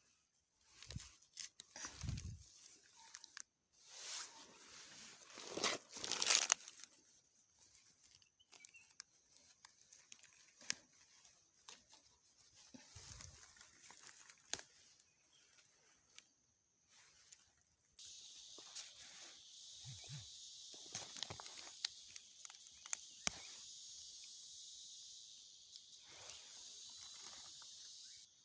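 Irregular rustling, crunching and tearing of dry leaves and plant stems as wild krachiao (Siam tulip) flowers are picked by hand. About two-thirds of the way through, a steady high insect drone starts suddenly and continues under the rustling.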